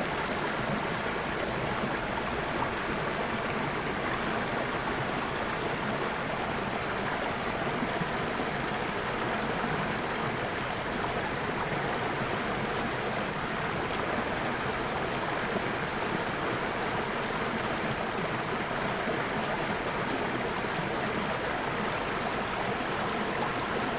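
Natural water flowing steadily, a continuous rushing and splashing like a stream.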